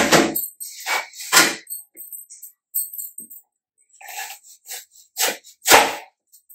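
Irregular knocks and clatter of a knife and apple against a plastic chopping board as peeled apples are cut into small pieces by hand.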